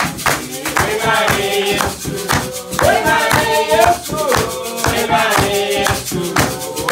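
Women singing a worship song to hand clapping and a wooden hand drum, over a quick steady beat.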